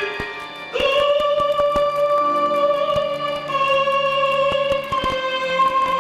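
Chamber orchestra music from a cantata for mezzo-soprano, solo violin and strings: a long high note comes in about a second in and is held over plucked string notes.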